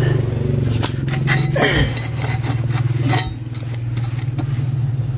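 Several sharp metal clinks and knocks, each ringing briefly, over a steady low motor hum.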